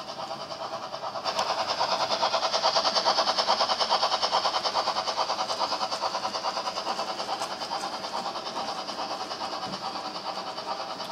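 Model train of tank wagons rolling past, its wheels clicking rapidly and evenly over the track. The clicking grows louder about a second in and then slowly fades as the train runs on.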